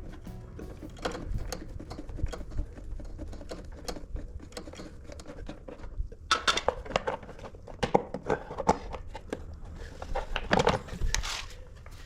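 Scattered clicks and knocks of hand tools and parts being handled during motorcycle rear-wheel and drive-belt work, with louder flurries of knocks about six seconds in and again about ten seconds in.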